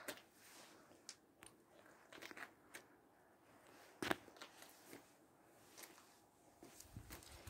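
Near silence with a few faint, scattered clicks and crunches. The sharpest click comes about four seconds in.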